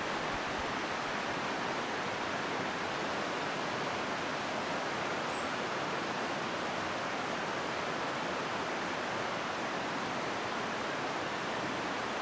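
Steady outdoor rushing noise, even and unbroken, with no distinct events.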